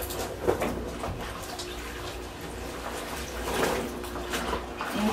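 Clothes being washed by hand in a basin of soapy water: irregular sloshing and splashing as the wet fabric is scrubbed and worked, a little louder about half a second in and again near the end.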